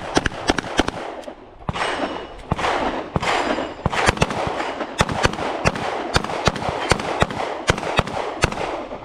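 Several handguns firing at once in a rapid, irregular string of shots, with many of the shots overlapping.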